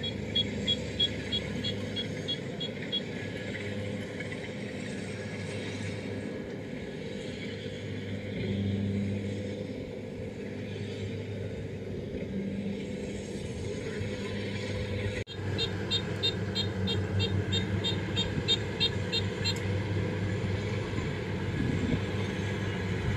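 Rice combine harvesters' engines running steadily with a low hum. A fast, high-pitched ticking comes in twice, at the start and again for a few seconds past the middle.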